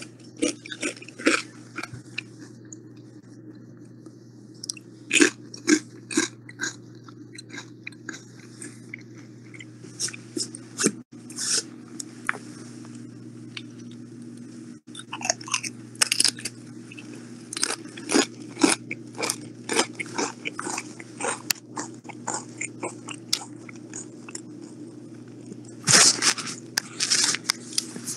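Close-miked crunching and chewing of crisp chips, bite after bite with short pauses between. The loudest crunches come near the end. A steady low hum runs underneath.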